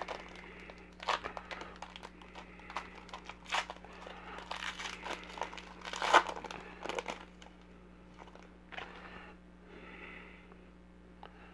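Foil wrapper of a Panini Contenders trading-card pack crinkling and tearing as it is opened by hand, in irregular crackles with a few sharper rips, then quieter rustling as the cards come out.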